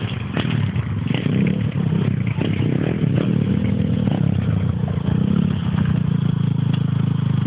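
Pit bike's small engine running at low revs, its pitch rising and falling a little as it is ridden slowly.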